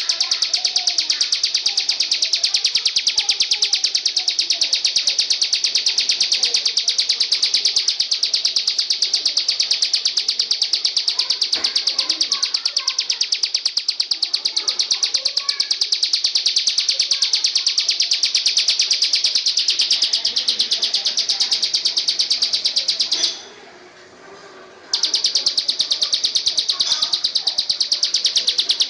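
A songbird's rapid, evenly pulsed high trill, kept up without a break for over twenty seconds, stopping about 23 s in for a second and a half, then starting again.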